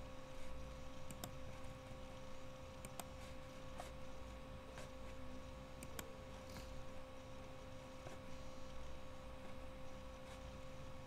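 Faint computer mouse clicks, a handful at irregular moments, over a steady hum.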